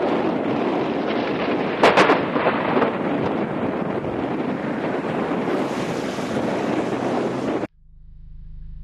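Strong storm wind buffeting the microphone in a steady rush, with a burst of sharper buffeting about two seconds in. It cuts off abruptly near the end, leaving a faint low hum.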